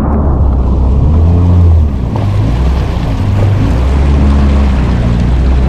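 Jet ski engine running at low revs, a steady low drone whose level dips slightly about two seconds in, with wind and water noise.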